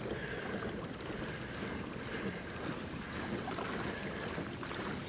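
Steady wash of lake water against a moving boat, mixed with wind on the microphone.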